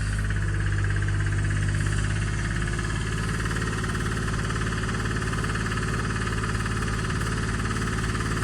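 Komatsu excavator's diesel engine running steadily at working speed while digging.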